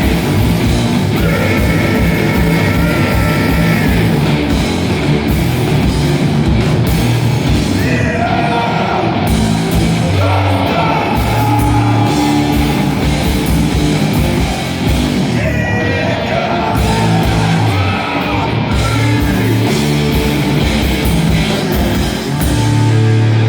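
Live rock band playing loud, heavy music with guitar and a singer yelling over it.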